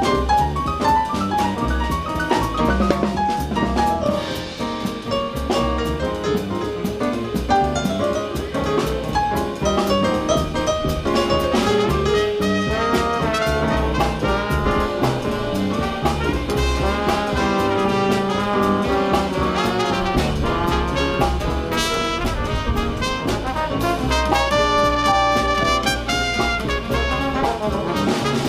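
Jazz sextet playing live: trombone, trumpet and alto saxophone horn lines over piano, bass and drum kit.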